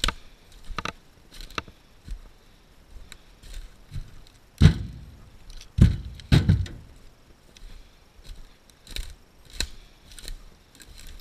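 Footsteps crackling through dry brush and snapping twigs, then around the middle a few heavy thuds as firewood rounds carried in log tongs are dropped into a small trailer, followed by more steps crackling through the brush.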